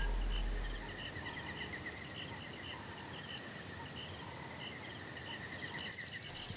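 Bush ambience: a steady, high, rapidly pulsing insect trill with scattered short chirps above it. The trill stops shortly before the end. A low music drone fades out in the first second.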